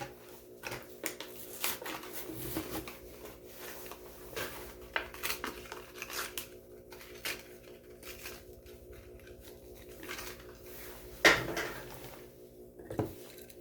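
Hot Wheels blister card being opened by hand: a string of plastic crinkles and clicks, with a louder crack about eleven seconds in.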